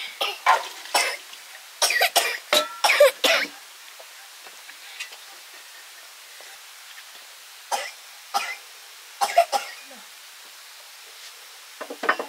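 A person coughing in short, sharp bouts: a quick run of coughs in the first few seconds, then a few more about eight to ten seconds in and again near the end.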